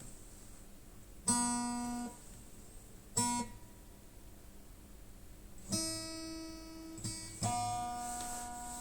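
Acoustic guitar playing slow, separate strummed chords, each left to ring and die away before the next, about five in all.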